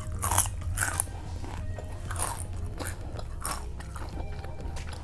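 Close-up crunching and chewing of Cool Ranch Doritos tortilla chips: several sharp, irregular crunches between quieter chews.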